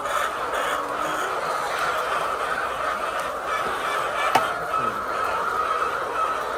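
A flock of chickens calling steadily together, with one sharp click about four seconds in.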